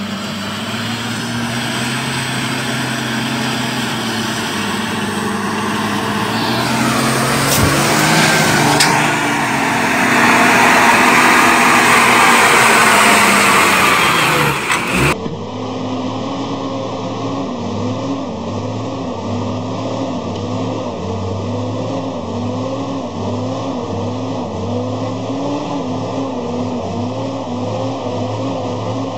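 Truck engines working in mud. A truck's engine runs hard as it comes up, getting louder and passing close a little before halfway; after a sudden cut, a second truck's engine runs under load on a muddy climb with a regular throbbing pulse.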